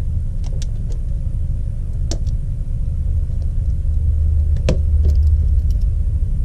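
A steady low rumble with two light clicks, about two seconds in and again near the middle, as small phone parts are fitted back into place by hand.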